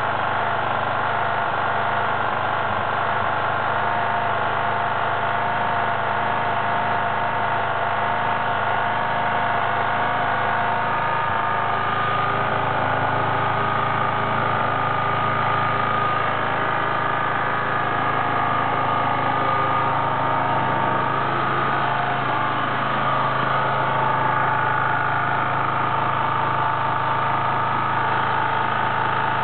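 Suzuki GSR125's single-cylinder four-stroke engine running steadily, with a steady tone above the engine note. The owner posts it as an abnormal noise from the bike.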